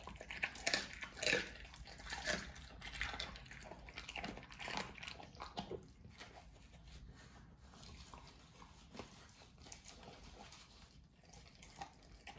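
A pit bull chewing raw chicken heads, bone and all: irregular wet crunches and bites, busiest in the first five seconds and sparser after.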